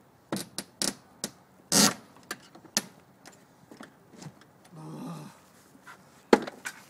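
A door frozen shut being pried at: a string of sharp knocks and clicks as the tool works at the door and frame, with a short rasp about five seconds in.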